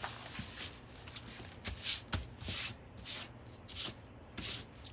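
Hands brushing and smoothing over a rolled diamond painting canvas to flatten it: a series of short rubbing swishes, the loudest ones coming in the second half.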